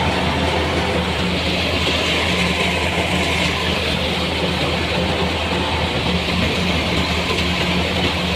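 An engine running steadily at one even speed: a low hum with a hiss above it.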